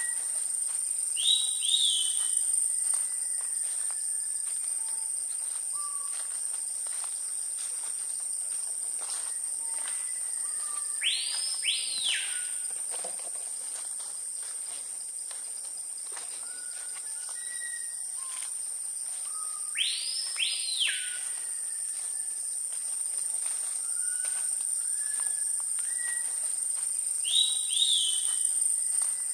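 Tropical forest ambience: a steady high-pitched insect drone, with birds whistling over it. A pair of loud swooping whistles, rising then falling, comes about every eight to ten seconds, with scattered short calls in between.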